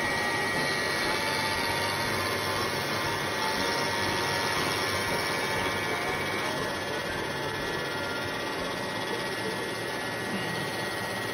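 Milling machine running, its end mill cutting along a block of wood: a steady machine noise with a high whine that shifts slightly about six and a half seconds in.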